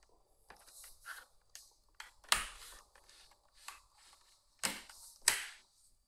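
Handling noises: soft rustling and taps, with a sharp click or knock about two seconds in and two more near the end.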